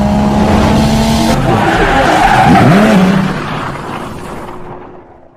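Race-car sound effect: a car engine at high revs with tyre squeal and skidding. The pitch swoops down and back up about halfway through, then the sound fades out near the end.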